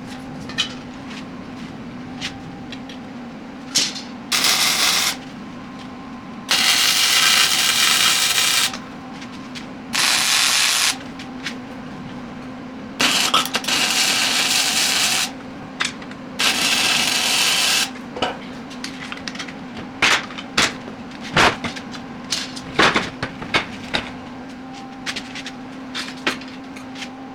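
Five short bursts of MIG welding, each a crackling one to two seconds long, over a steady low machine hum, followed by a scatter of sharp metal clicks and knocks.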